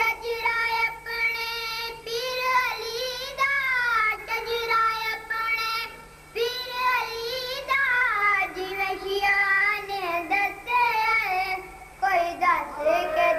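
A boy singing solo into a microphone, holding long, wavering notes that bend up and down, with short pauses between phrases about six and twelve seconds in.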